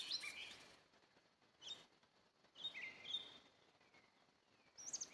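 A songbird singing: four short phrases of high, sliding chirps about a second apart.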